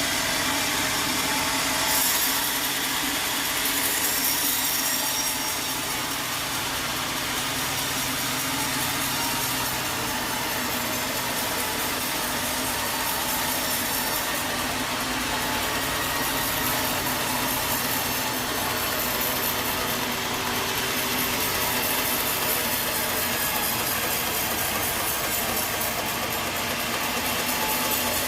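A sawmill saw cutting wood, with steady, unbroken sawing noise throughout.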